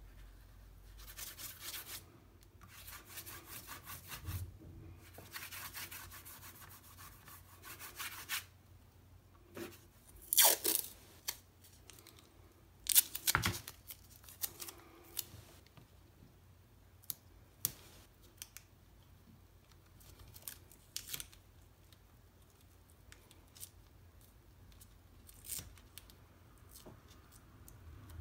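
Masking tape being pulled off its roll in several noisy stretches, then torn off with two sharp rips, followed by scattered light taps and rubbing as the tape is pressed down onto watercolour paper with the fingers.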